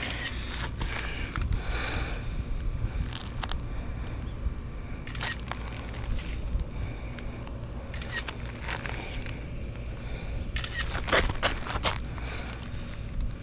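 Asphalt roof shingles being handled: scattered scrapes, crackles and clicks, with a denser cluster near the end, over a low steady rumble.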